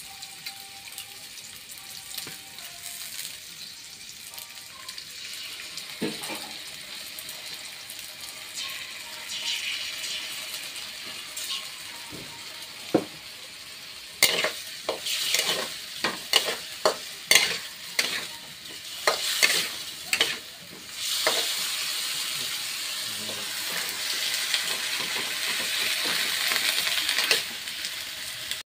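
A pot of Khmer braised fish (kho trey) with eggs simmering and sizzling with a steady hiss. From about halfway through, a quick run of clinks and knocks against the metal pot lasts several seconds. After that the bubbling hiss comes back steadier and slowly grows louder.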